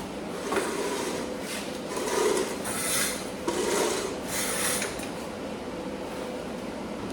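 About five short rasping, scraping strokes on metal in quick succession, over a steady machine hum.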